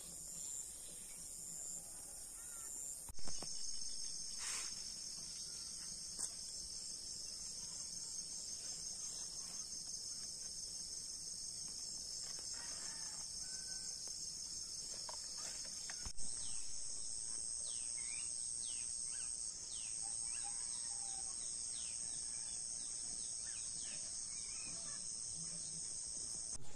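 Insects chirring in a steady, high-pitched chorus, changing abruptly twice. Short falling bird chirps come over it in the second half.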